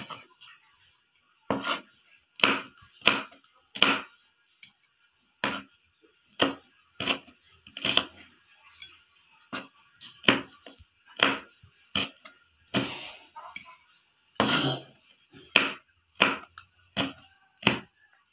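Kitchen knife chopping green bird's eye chillies on a plastic cutting board: single sharp knocks of the blade on the board, unevenly spaced at about one a second.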